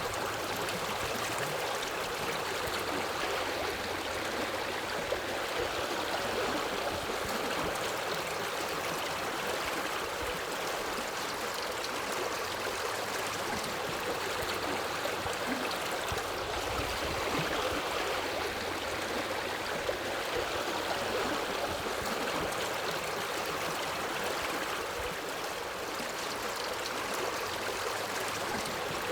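A forest river flowing steadily over rocks: an even, continuous rush of water.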